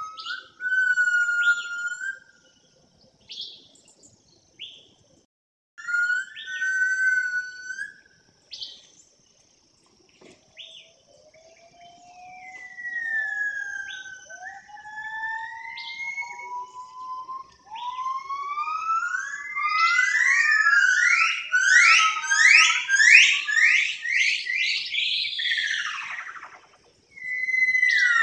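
A songbird singing a varied song of clear whistled notes and sliding glides, broken by short pauses. It builds to a fast run of repeated sweeping notes near the end.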